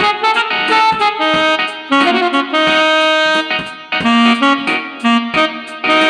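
Instrumental music playing from a Tecno Square One Bluetooth speaker: a melody of held notes over chords, with very little bass.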